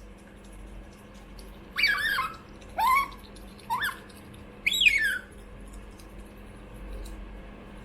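Pet otter calling for food: four high-pitched squealing chirps about a second apart, most of them falling in pitch, the second one rising.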